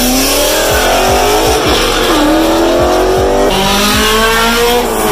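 Cars accelerating hard past one after another, engines revving loudly. The pitch climbs, drops about two seconds in, and climbs again, and a second engine's rising revs take over past the middle.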